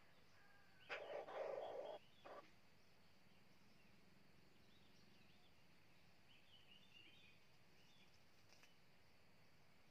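Red junglefowl rooster crowing once: a short crow of about a second, cut off with a brief final note. Small birds chirp faintly in the background.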